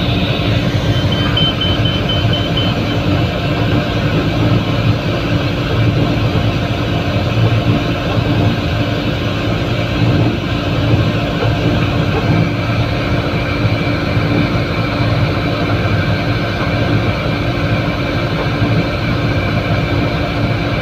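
Loud, steady running noise of a diesel locomotive under way, heard from its front end: a constant engine drone and hum with the rumble of the train rolling on the rails.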